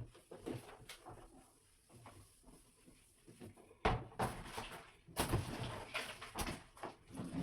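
Washing machine parts being handled: a sharp knock at the start and light clicks, then a louder knock about four seconds in, followed by a couple of seconds of clattering and rubbing with more knocks.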